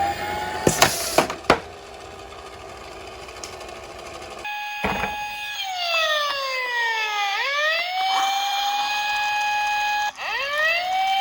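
Electronic ambulance siren, its pitch sliding slowly down and back up, then sweeping up again near the end. A few sharp knocks about a second in.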